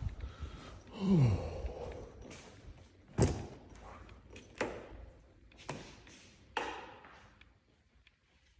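Chiropractic adjustment: a man's short groan falling in pitch, then four sharp knocks about a second apart, the first the loudest.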